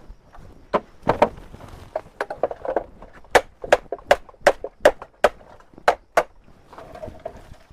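Chopping on wood: a run of sharp strikes, about two or three a second, stopping about a second before the end.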